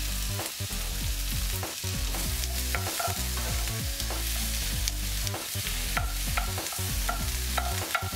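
Onion and carrot slices sizzling in hot oil in a nonstick frying pan, with a wooden spatula scraping and tapping the pan as they are stirred.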